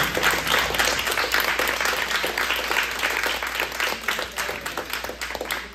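A small group of about ten people applauding with hand claps, dying away near the end.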